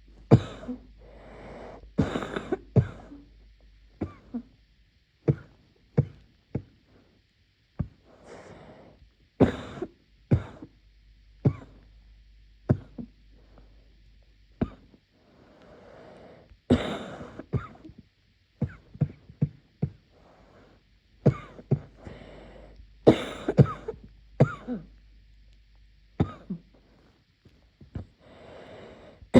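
A person in a muffled coughing fit: harsh coughs come again and again in bouts, a few seconds apart.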